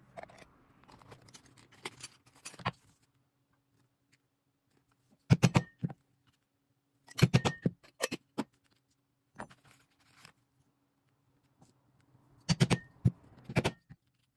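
Rustling handling for the first few seconds, then three groups of sharp knocks, several in quick succession each, some followed by a brief metallic ring: hand tools knocking during leatherwork.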